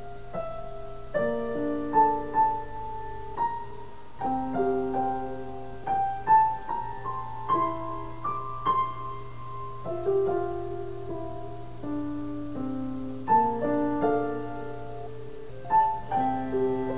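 Solo piano music: a gentle melody of single notes and chords, each note struck and left to ring.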